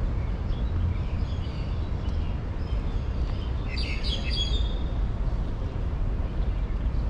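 Birds chirping in short high calls, with a quick flurry of chirps about four seconds in, over a steady low rumble.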